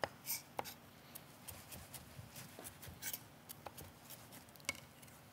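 Faint, scattered taps and scrapes of kitchen utensils being handled.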